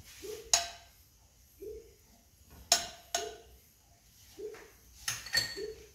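A metal stirring utensil clinking against the side of a stainless steel pot while garlic is stirred in oil: about five sharp clinks with a brief metallic ring. A fainter low sound repeats about once a second underneath.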